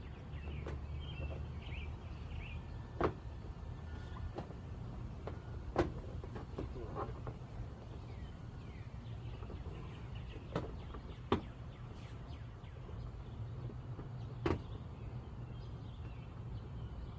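Scattered sharp knocks and clicks, about five in all, from a plastic fender flare and its screws being worked onto a pickup truck's fender, over a steady low rumble.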